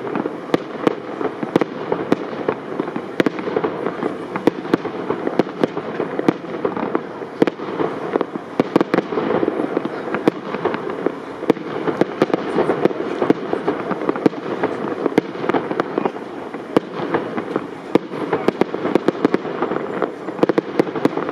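Aerial fireworks display of shells up to 75 mm calibre: a continuous barrage of sharp bangs several times a second over dense crackling.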